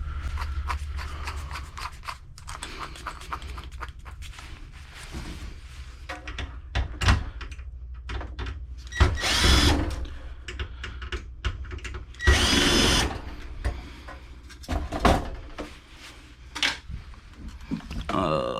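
Power drill whirring in short bursts, about nine seconds in and again about twelve seconds in, with clicks and clanks of metal computer parts being handled in between.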